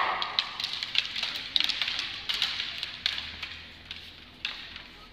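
Scattered clicks and taps of wooden sticks (lathis) knocking during a group stick-fighting drill, growing fainter.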